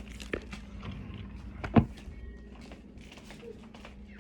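A few knocks and thumps from things being handled and set down, the loudest about two seconds in, over a steady low hum.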